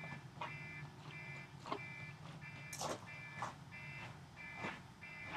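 Alarm beeping in a steady repeating pattern, about three beeps every two seconds, signalling that it is time for the first coat of paint. A few sharp knocks or clicks fall among the beeps, the loudest about three seconds in.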